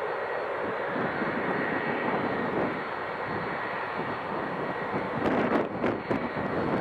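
Boeing 757 jet engines running on the runway: a steady rushing noise with a faint high whine. Near the end, wind buffets the microphone.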